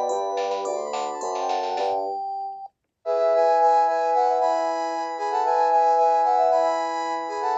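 Panasonic cordless phone handset playing its polyphonic ringtone melodies: one tune with a clicking beat ends on a held note about two and a half seconds in, and after a brief silence a new tune of sustained chords begins.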